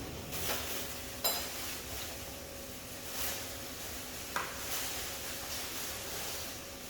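Kitchen handling sounds: a ringing clink of a utensil or dish about a second in and a few softer knocks and rustles, over the faint steady sizzle of chicken frying in oil.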